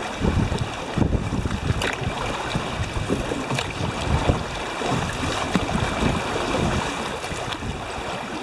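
Creek water rushing and splashing along the side of a moving canoe in a riffle, with wind buffeting the microphone.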